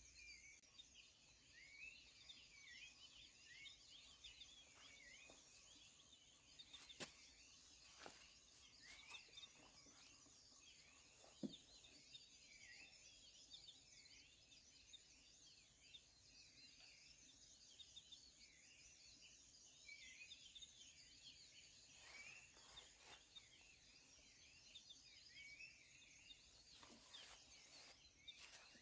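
Faint outdoor ambience: a dense chorus of small birds chirping continuously, with a few faint clicks scattered through it.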